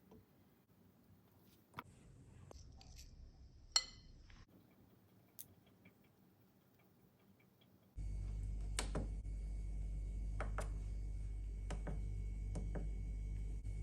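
A few light clinks and taps of kitchenware, one of them ringing briefly. About eight seconds in, a steady electrical hum starts abruptly, with scattered clicks over it.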